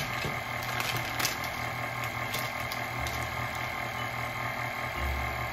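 Electric stand mixer running steadily with its paddle attachment, stirring dry flour mixture in a stainless steel bowl; the motor gives an even hum and whine. A couple of brief clicks sound over it.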